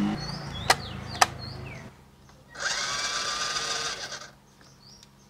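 Two sharp clicks as the battery is plugged in, then the RC crawler's electric drive motor spins up with a whine for about a second and a half, its wheels turning freely in the air with the truck upside down.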